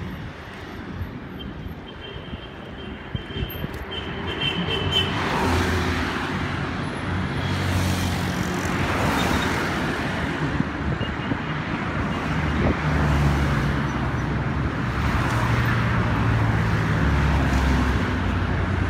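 Road traffic passing close by: cars and minibus vans driving past with their engines running. It grows louder about five seconds in, with several vehicles passing one after another.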